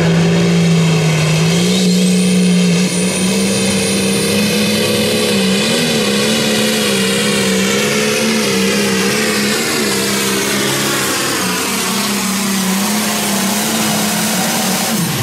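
Light-limited pro stock pulling tractor's turbocharged diesel engine running flat out under load as it drags the sled down the track. Its pitch holds high and wavers up and down, with a thin high whistle over it for a couple of seconds near the start.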